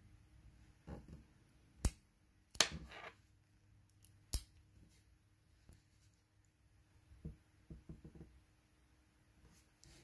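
Clicks from a small zinc-alloy TSA combination cable padlock being handled. Three sharp clicks come within the first few seconds, the loudest about two and a half seconds in, then a quick run of lighter clicks about seven to eight seconds in.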